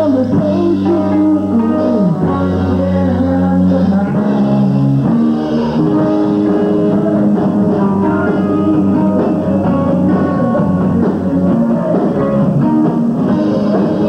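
Live rock band playing with electric guitars, bass and drums, loud and continuous.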